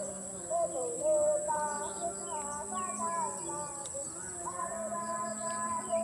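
Distant sung chanting, several wavering voices gliding up and down, over a steady high-pitched insect drone.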